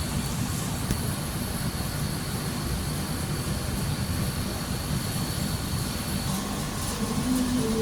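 Air-conditioner outdoor unit running: a steady whoosh with a low rumble. A faint high whine stops about six seconds in, and a low steady hum with a higher tone sets in near the end.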